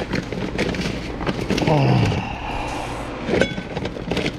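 Dry rice being scooped from a plastic bag into a rice cooker's nonstick inner pot. The grains rattle against the pot and the bag rustles, in irregular clatters.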